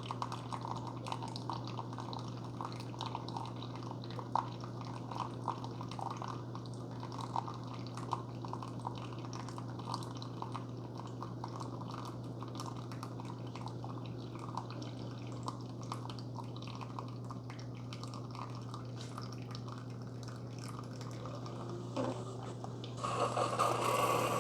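Keurig K-Supreme Plus single-serve coffee maker brewing a Robust-strength cup: coffee streaming and dripping into the mug over a steady low hum from the machine. About 23 seconds in the sound grows louder and noisier.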